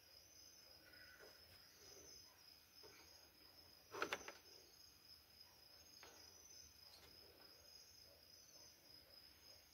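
Near silence: faint, steady, high cricket chirping, with a brief knock about four seconds in.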